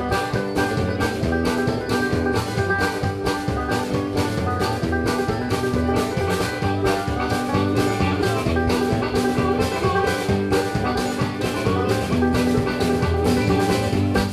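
Live band playing an upbeat instrumental introduction with a steady beat of about three strokes a second under sustained pitched instrument notes.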